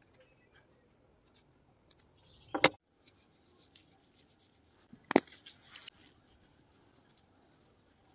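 Small sharp clicks and knocks of a knife and utensils against a ceramic plate as cherry tomatoes are sliced and mozzarella is peppered. One clear click about two and a half seconds in, then a short cluster of clicks around five seconds in.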